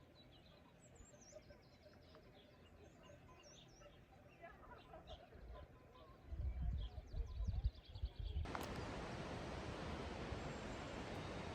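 Small birds chirping and trilling, with a few low rumbles of wind on the microphone near the middle. About three-quarters of the way in, this cuts suddenly to a louder steady rushing noise.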